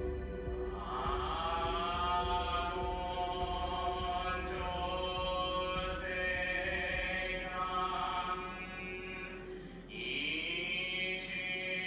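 Buddhist sutra chanting: long, drawn-out sung syllables that scoop upward into held notes over a steady background drone. A new phrase begins about ten seconds in, after a brief dip.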